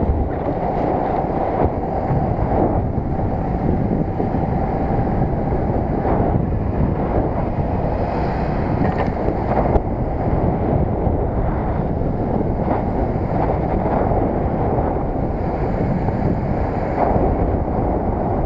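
Steady wind rumble on the microphone of a camera riding on a moving underbone moped, with the small motorcycle's engine running underneath.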